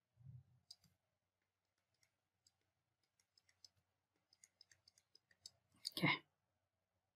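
Faint scattered clicks and taps of a stylus writing on a tablet, with a soft low thump at the start. About six seconds in there is one louder, brief knock.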